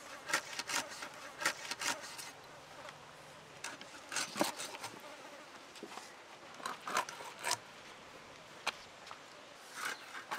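Hilsa fish being cut into pieces on a boti blade. Irregular short cutting and scraping sounds come in small clusters as pieces are pushed through the blade and set down on a banana leaf.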